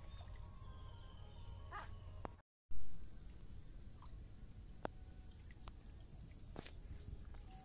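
Outdoor ambience with a steady low rumble, a few faint clicks and short chirps. The sound drops out completely for a moment about two and a half seconds in and comes back with a loud thump.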